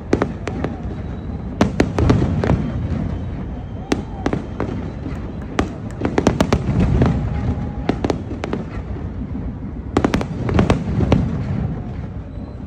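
Aerial fireworks shells bursting overhead in a large display: sharp bangs coming in quick clusters, about two seconds in, around six to seven seconds and around ten to eleven seconds, over a continuous low rumble of further explosions.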